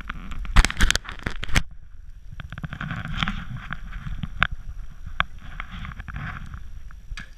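Snowboards sliding through fresh powder: a steady rushing scrape of snow under the boards, with wind and small bumps on the action camera's microphone. About half a second in comes a quick run of loud knocks lasting about a second, the loudest sound here.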